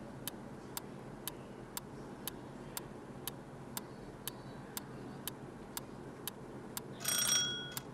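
Countdown timer sound effect: a clock ticking steadily about twice a second, with a short ringing tone near the end.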